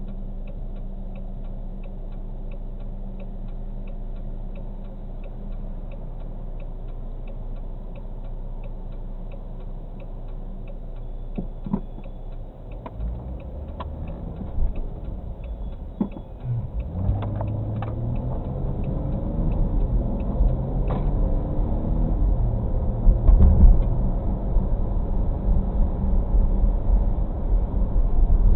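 Inside a car's cabin: the turn signal ticks steadily, about three clicks a second, over the engine idling while the car waits at a light. About halfway through the ticking stops and the engine pulls away, rising in pitch, with tyre noise from the wet road growing louder.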